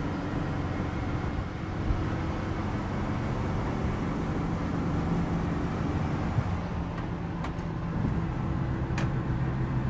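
Cabin sound of a 1967 Volkswagen 21-window bus driving: the rear-mounted air-cooled flat-four engine runs steadily under road and tyre noise. The engine note shifts in pitch a couple of times, and a few light clicks come near the end.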